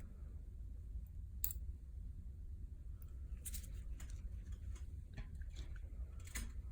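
Scattered light clicks of metal surgical instruments during suturing of a torn earlobe, over a steady low hum.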